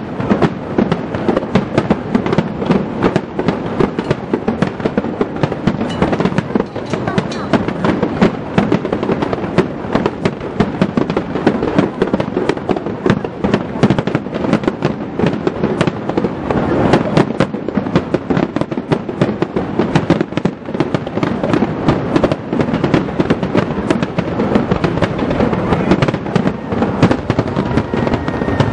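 Aerial firework shells bursting in a rapid, overlapping barrage, their bangs and crackling running together into a dense, unbroken volley.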